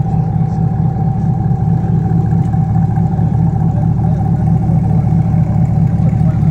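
An engine idling steadily: an even, deep rumble with a steady whine above it.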